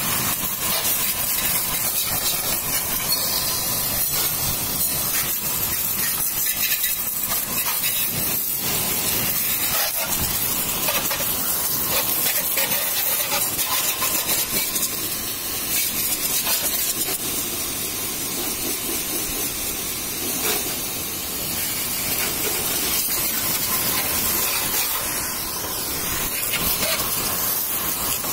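High-pressure washer jet hissing steadily as it sprays water over a motorcycle's engine, crash guard and wheel.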